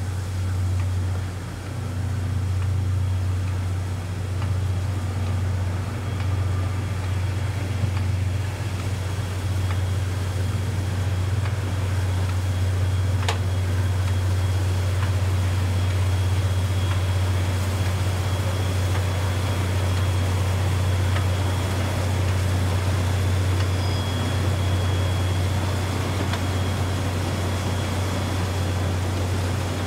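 A diesel engine idling steadily with a constant low rumble and a faint, steady high whine above it; a single sharp click about thirteen seconds in.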